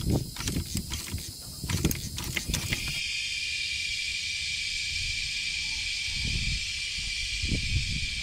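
Clanks and knocks of a hydraulic floor jack being set and pumped under a tractor's rear axle. From about three seconds in comes a steady hiss of air escaping from the tire's open valve stem, with a few low thumps of the jack near the end.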